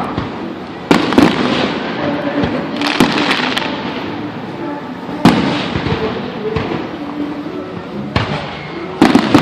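Fireworks bursting overhead: four loud bangs, about a second, three seconds, five seconds and nine seconds in, each trailing off into crackle, with a steady background hiss between them.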